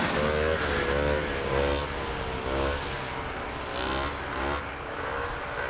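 Vintage two-stroke racing snowmobile engines revving up and down in a series of rising and falling pitches, easing off somewhat near the end.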